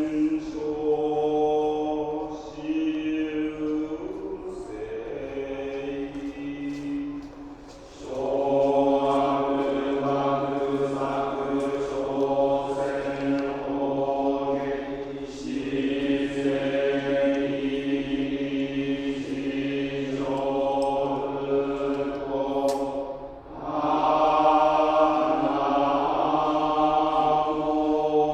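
Buddhist monks chanting together in long held tones over a low steady drone. The chant falls away briefly twice between phrases.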